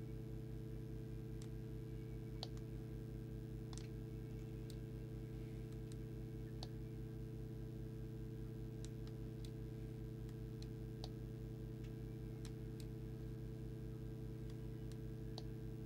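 Faint, irregular clicks of a handheld CB radio's keypad buttons and power switch being pressed, over a steady low electrical hum.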